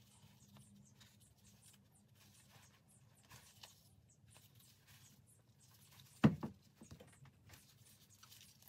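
Faint clicks and rustles of small parts being handled on a workbench, with one sharp knock about six seconds in and a couple of lighter knocks just after it.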